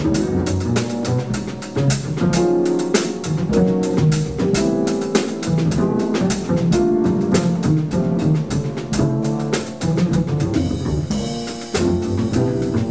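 Jazz piano trio playing: grand piano, upright double bass and drum kit with cymbals.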